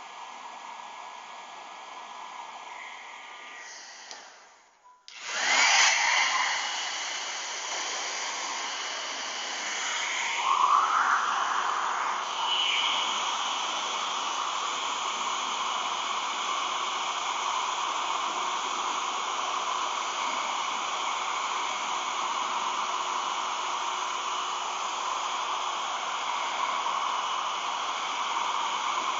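Hair dryer blowing with a steady whirring hiss. It cuts out about four seconds in and starts again a second later, louder, then runs on steadily while it heats clear vinyl film so the film can be stretched over a goggle lens.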